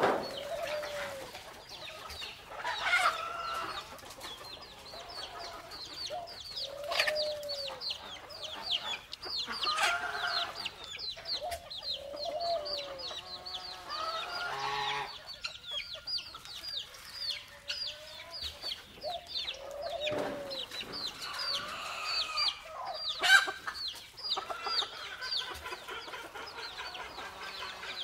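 Farmyard chickens: hens clucking with short arching calls every few seconds over a steady stream of rapid, high chirping, with one louder call about 23 seconds in.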